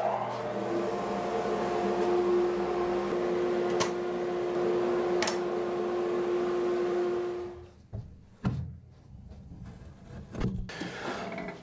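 Table saw motor running steadily with a held hum and a hiss of air through the sawdust-filled cabinet; it stops about eight seconds in, followed by a few scattered knocks and clicks.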